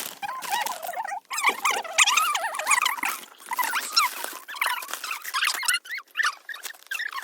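Birds chattering in the forest: many short, squeaky, wavering calls overlapping without a break.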